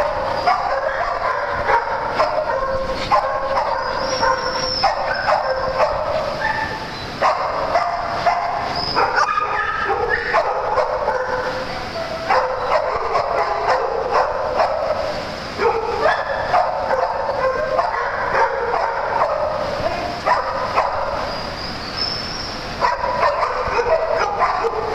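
A group of small dogs barking and yipping without a break, their calls overlapping one another.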